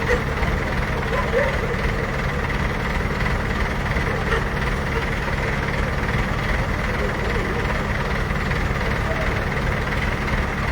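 Heavy diesel engine idling steadily, a constant low rumble that neither rises nor falls.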